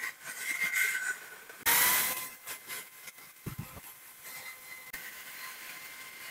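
Electric drill running with a spinning abrasive attachment scouring rust off a meat grinder's steel auger: a steady motor whine under a hissing scrape, with a loud, harsh burst of grinding a little under two seconds in.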